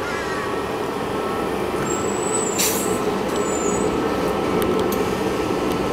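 ElDorado National EZ Rider II bus with a gasoline-electric series hybrid drive pulling up to a stop, running with a steady drone and a faint steady whine. A short hiss of air from the air brakes comes about two and a half seconds in.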